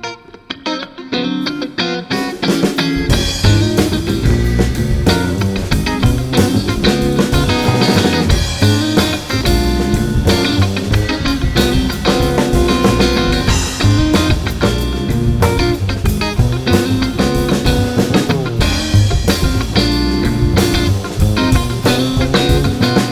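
Background rock music: electric guitar over a drum kit, starting sparse and filling out with bass and drums about three seconds in.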